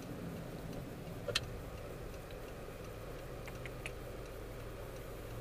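Low steady hum of a 2002 Honda CR-V heard from inside the cabin while driving. A few scattered clicks, the sharpest about one and a half seconds in and a small cluster near the end.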